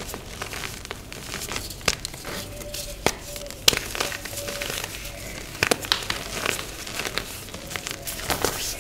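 Dyed, reformed gym chalk being crushed and crumbled: a dense, dry crackle full of small crunches, with sharper snaps about 3.7 and 5.7 seconds in.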